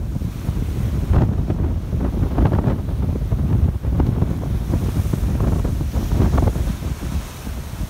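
Gale-force wind buffeting the microphone, over the rush of breaking seas around a sailboat's stern.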